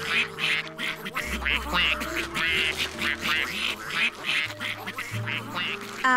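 Cartoon ducks quacking, many short quacks in quick succession, over light background music.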